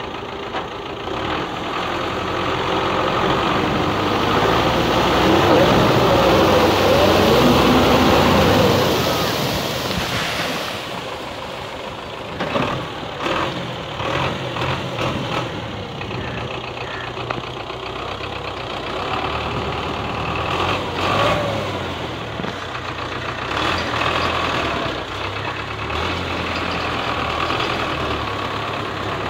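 Belarus tractor's diesel engine running under load while dragging a rear levelling blade through flooded, muddy ground, with water churning around the tyres. It is loudest for several seconds in the first third.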